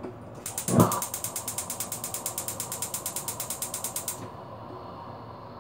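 Rapid, even mechanical clicking, about ten clicks a second, lasting about four seconds and then stopping, with a thump near the start.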